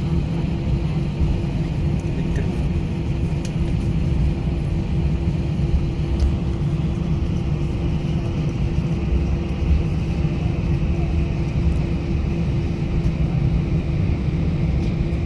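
Cabin noise inside an Airbus A319 taxiing after landing: a steady low rumble from the engines and airframe with a constant hum underneath.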